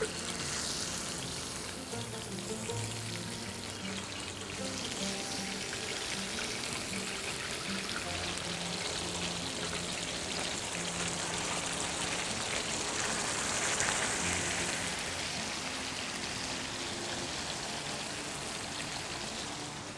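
Veal loin chops sizzling in hot oil in a saj pan, a steady hiss of frying, with background music underneath.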